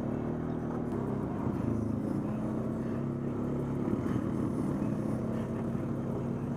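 ATV engine running steadily under way, with small changes in engine speed.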